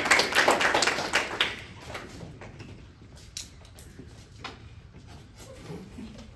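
A room of people clapping, dying away about a second and a half in, followed by quiet room sound with a few scattered knocks and shuffles.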